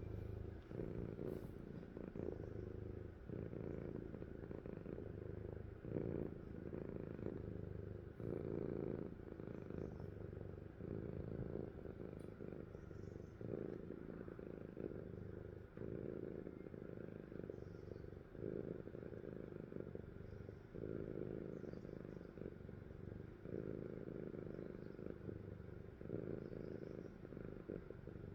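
A sleeping cat purring close up: a low steady buzz that swells and eases with each breath, every couple of seconds.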